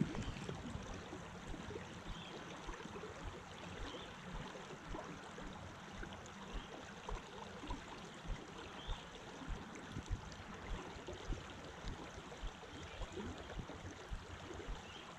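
Creek water running steadily over a shallow gravel riffle, with faint, short low knocks throughout.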